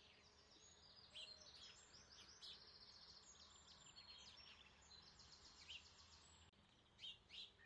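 Near silence with faint birdsong: many short, high chirps.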